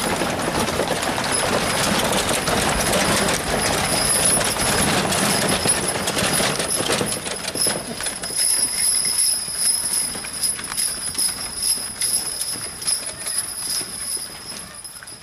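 A pair of Belgian draft horses pulling two wooden covered wagons over a gravel and snow lane: a steady rumble and rattle of the spoked wheels and wagon gear, with hoof clops, getting quieter from about halfway as the team moves off.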